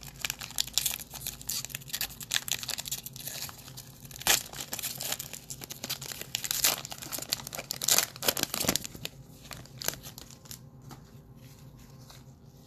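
A trading card pack's wrapper being torn open and crinkled in the hands: a dense run of tearing and crackling rustles that dies down near the end.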